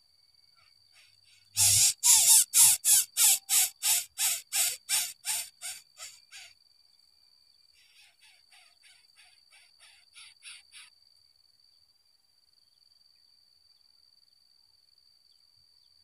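Greater coucal calling at the nest: a loud run of about eighteen quick, evenly spaced notes, a little over three a second, fading away, then after a short pause a fainter run of about a dozen notes.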